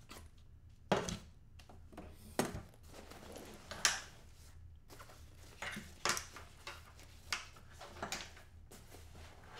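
Handling noise from a camera backpack being opened and unpacked: scattered rustles, knocks and clicks of nylon straps, buckles and the gear inside. The loudest knocks come about a second, two and a half and four seconds in, with smaller ones through the rest.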